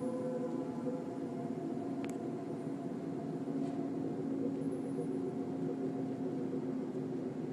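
A steady, low droning hum with several held tones layered over it, of the kind recorded as an unexplained 'strange sound' coming from the sky. The higher tones fade about a second in, leaving the deep drone; a faint click about two seconds in.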